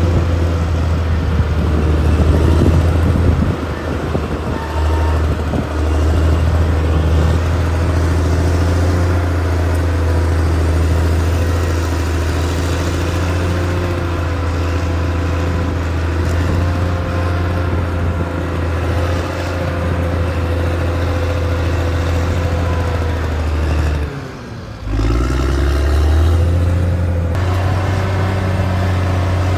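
Cat D6R XL bulldozer's diesel engine running steadily under work, with a brief dip in the sound about 24 seconds in before it picks up again.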